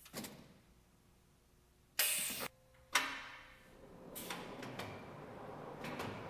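Pneumatic machinery of a woodworking case clamp's handling table in operation: a click, then about two seconds in a loud half-second hiss of compressed air and a sharp clack about a second later, followed by a rising rumble with scattered clicks as parts move.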